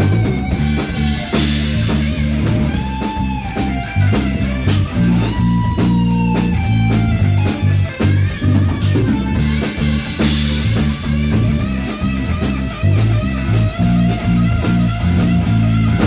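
Live rock band playing: electric guitar with bent notes over a bass line and drum kit, cymbals crashing now and then.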